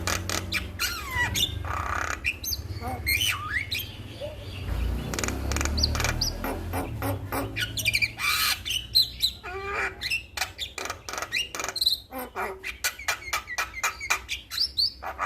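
Male Javan myna singing a fast, varied song: harsh squawks and rapid chattering clicks mixed with short gliding whistles. A low steady hum lies under the first half.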